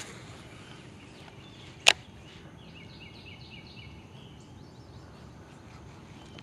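A cast with a Quantum Icon baitcasting reel: a faint whir as the spool pays out line, then one sharp click just under two seconds in as the reel is engaged. A short run of high bird chirps follows over a quiet outdoor background.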